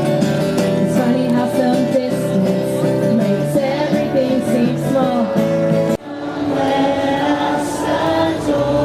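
A group of carolers singing a Christmas carol together. The singing breaks off abruptly about six seconds in and picks up again at once.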